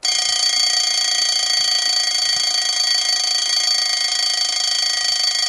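Alarm clock ringing: one loud, steady, high-pitched tone with many overtones, unbroken throughout.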